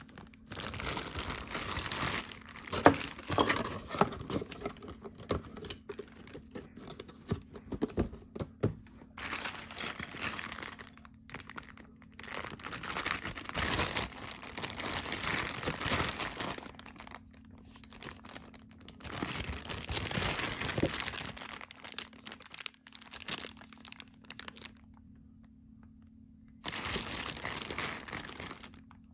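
Plastic figure packaging being handled and unwrapped: crinkling and rustling in uneven spurts, with a few sharp clicks and a pause of a couple of seconds near the end.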